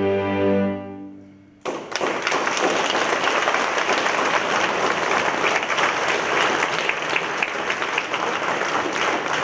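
A string quartet of violins, viola and cello holds a final chord that fades away within about a second and a half; then the audience breaks into steady applause.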